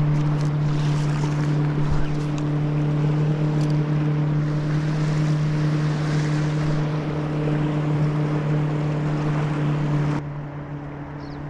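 A boat motor runs steadily, giving a low even hum, over rushing water and wind noise. About ten seconds in the hiss drops away and the hum carries on.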